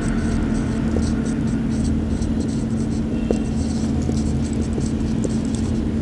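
Marker pen writing on a whiteboard, a run of short, irregular strokes, over a steady low hum of background noise.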